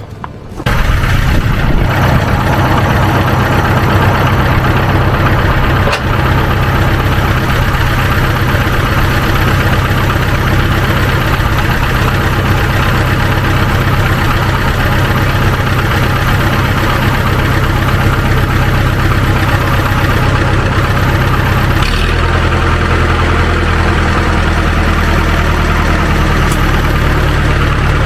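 Farm tractor engine starting up about half a second in, then running steadily at idle; its note shifts about 22 seconds in.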